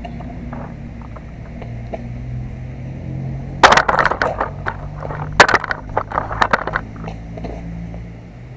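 Skateboard wheels rolling on concrete with a steady low rumble, then, about halfway through, a run of sharp clacks and knocks from the board hitting the ground, the two loudest about two seconds apart.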